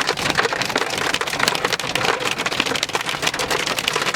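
Heavy rain mixed with hail pelting down: a loud, dense, rapid patter of hits.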